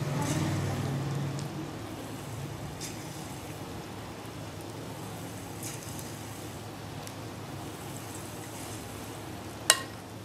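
Pakora batter frying in hot oil in an aluminium karahi, a steady sizzle, with a low hum over the first second and a half. Near the end a metal spoon strikes the pan once with a sharp, ringing clink.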